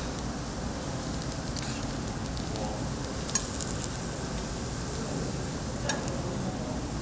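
Food sizzling on a hot cast-iron cauldron-lid grill, with scattered sharp crackles; the loudest comes about halfway through and another near the end.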